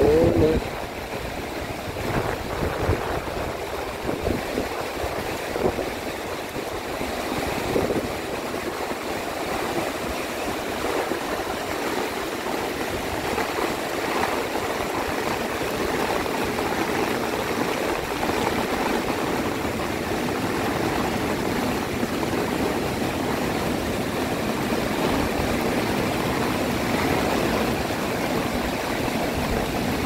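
A river in flood, swollen by heavy rain and running muddy through a rocky gorge, rushing in a steady loud noise of churning water. A brief pitched sound is heard right at the start.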